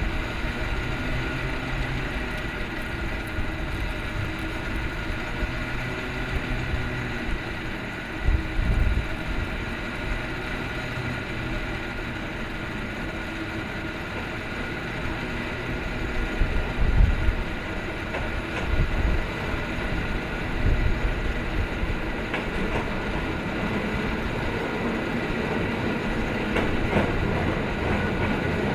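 Tram running on city street rails amid traffic noise, with a steady high whine and a few heavy low thumps, the loudest about halfway through.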